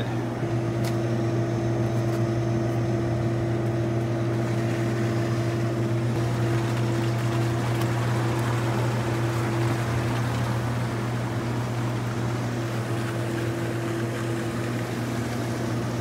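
Water hissing and rushing into freshly repaired Schedule 80 PVC chilled-water piping as a ball valve is slowly opened, the rush growing stronger in the middle. Under it runs a steady low machinery hum.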